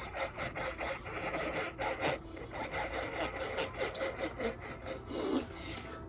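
A crunchy cookie being chewed close to the microphone: irregular crunching and rasping crackles.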